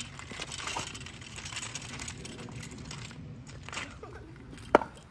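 Kick scooter's small wheels rolling over wet asphalt, a steady rough rushing that fades after about three seconds, then one sharp clack near the end.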